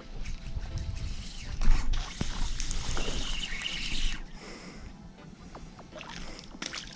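A hooked ladyfish splashing and thrashing at the water's surface, loudest for about two seconds starting near two seconds in.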